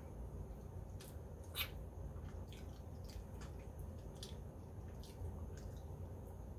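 Close-up mouth sounds of eating rotisserie chicken by hand: scattered short wet smacks and clicks of chewing and lips on fingers, the loudest about one and a half seconds in, over a low steady hum.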